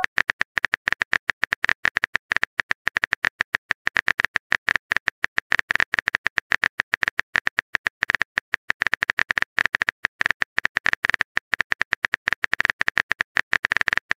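Smartphone on-screen keyboard key-tap clicks, a rapid steady stream of several taps a second, as a message is typed out.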